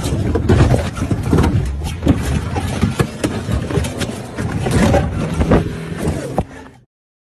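Safari vehicle engine running under many knocks and jolts from a shaken, handheld phone; the sound cuts off suddenly near the end.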